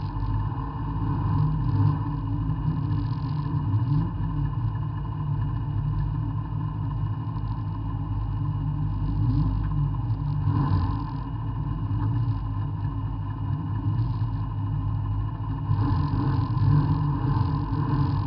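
Folkrace car's engine idling steadily, heard from inside the cabin.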